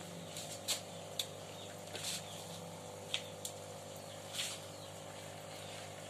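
Water trickling from above into a small tarpaulin fish pond over a steady low hum, with a handful of short, sharp sounds scattered through it.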